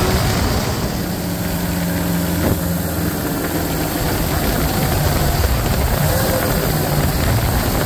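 LS-swapped jet boat's V8 engine running steadily under way, with a constant rush of wind and water noise over it.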